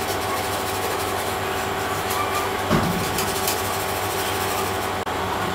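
Small metal blade scraping the old paint on a metal model jet's fuselage: a steady rasping rub with a few sharper strokes, the loudest about halfway through.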